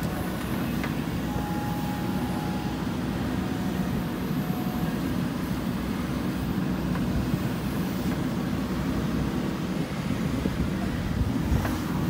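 JCB 3DX backhoe loader's diesel engine running steadily while the backhoe arm digs and dumps soil, with a faint whine coming and going.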